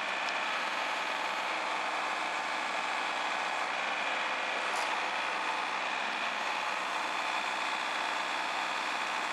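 Excavator's diesel engine running steadily.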